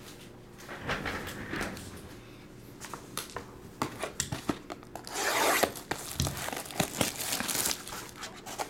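Plastic wrap being torn off sealed trading card boxes and packs and crinkled. There are short rips about a second in, a longer, louder tear a little past halfway, and crackling clicks of handling throughout.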